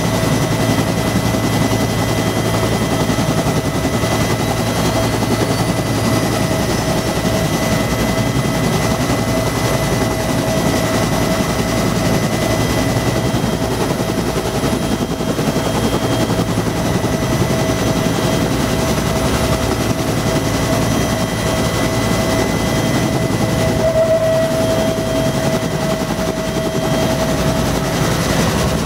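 Bell UH-1B Huey helicopter running, heard from inside its cabin at the open door: the steady whine of its Lycoming T53 turbine over the fast, even beat of the two-bladed main rotor.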